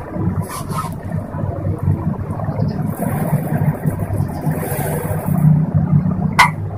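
Pot of mash (urad) daal boiling on a gas burner: a steady low rumble of flame and bubbling, with a single sharp click near the end.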